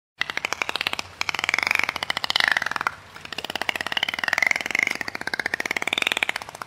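An animal call made of rapid pulses, in three long stretches, its pitch wandering up and down.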